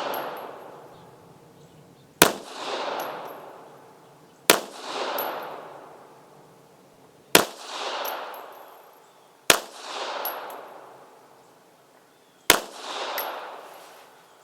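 Astra Model 300 .380 ACP pistol fired five times in slow, deliberate succession, about two to three seconds between shots. Each sharp report is followed by a long echo that swells and fades.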